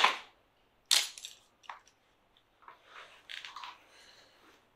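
Sharp plastic snaps from a Steelbird SBH-17 motorcycle helmet as it is opened and unfastened: a loud one at the start, another about a second in and a faint click just after. Then comes a soft scraping rustle of the helmet and its padding being pulled off over the head.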